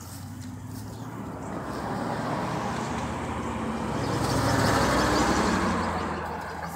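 A motor vehicle passing by: engine and road noise grow louder to a peak about five seconds in, then fade away.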